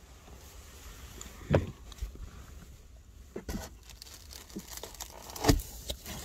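Rustling and handling noises inside a small car, with two sharp knocks, the louder about a second and a half in and another near the end, as a mesh sunshade is pulled down from the inside of the rear window.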